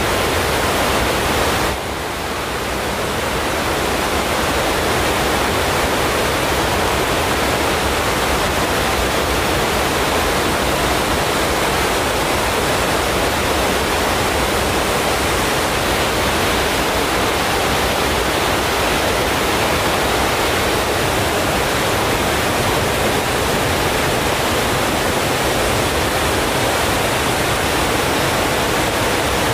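Steady, even rushing noise with no distinct events, dipping briefly about two seconds in.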